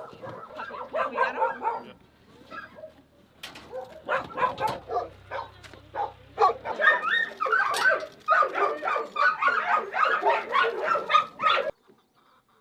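Many caged dogs barking and yelping over one another in a dense chorus, with a brief lull about two seconds in; it cuts off suddenly near the end.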